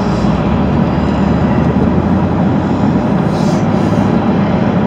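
Steady road and engine noise heard inside the cab of a moving vehicle: an even low rumble with a hiss above it.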